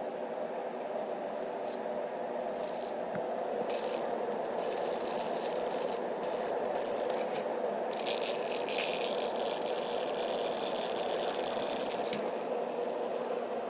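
A Thomas toy buzzing and rattling as it vibrates close to a running Dohm white noise machine, whose steady fan whoosh runs underneath. The rattling comes and goes in long stretches and dies away near the end. The owner puts the vibration down to something to do with magnets in the machine.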